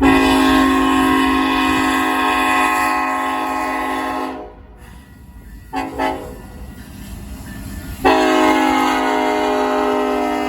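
Union Pacific diesel locomotive's air horn sounding a chord: one long blast, two quick short toots, then another long blast starting about 8 seconds in, over the low rumble of the train.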